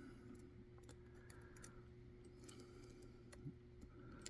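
Faint, scattered light clicks of a lock pick working the pin stacks of a six-pin Dorma mortise pin-tumbler cylinder, over a low steady background hum.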